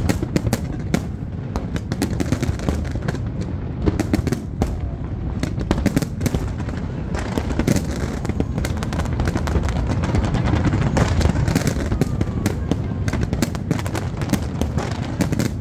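Fireworks display: a dense, unbroken run of sharp bangs and crackles from many shells and cascades firing at once, over a constant low rumble.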